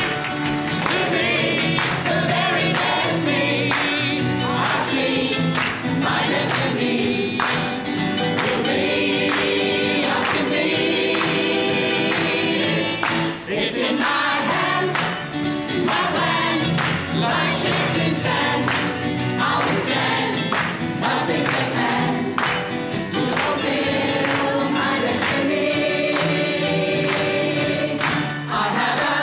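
Mixed community choir singing an upbeat song together, with steady rhythmic handclaps on the beat.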